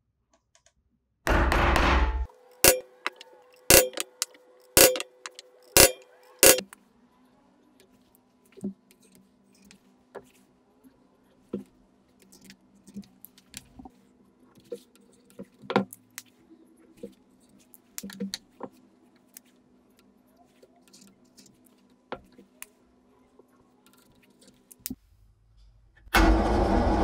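Hammer tapping a centre punch into a steel block: a loud knock, then five sharp metallic strikes about a second apart, each with a short ringing tone. Then faint small clicks over a low hum, until a drill press motor starts loudly near the end.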